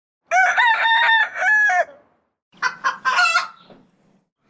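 A rooster crowing, one long cock-a-doodle-doo, followed about a second later by shorter clucking calls.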